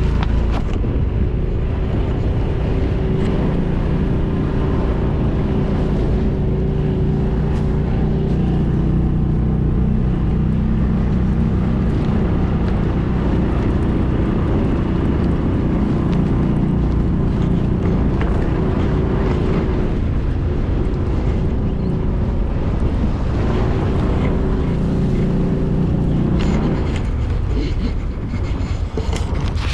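Engine of an old Kawasaki Mule utility vehicle running hard under load as it ploughs through a deep snowdrift, steady for most of the time and easing off near the end.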